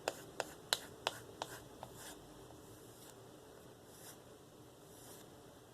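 A knife blade being stropped on a balsa strop loaded with diamond paste: quick strokes with a sharp click about three times a second that die away a little under two seconds in, then slower, soft rubbing strokes about once a second.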